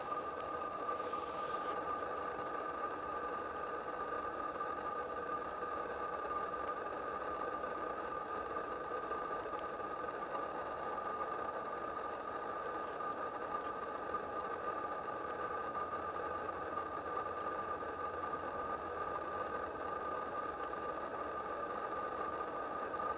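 Steady machine hum with a constant mid-pitched tone, unchanging throughout.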